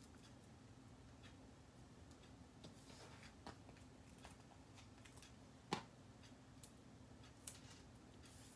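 Near silence with faint small clicks and paper rustles as foam adhesive dimensionals are picked off their backing sheet and pressed onto a die-cut cardstock piece, one sharper click a little under six seconds in, over a low steady hum.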